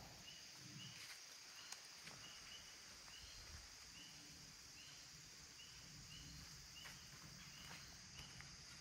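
Faint late-summer insect chorus: a steady high-pitched drone, with a short chirp repeating about twice a second.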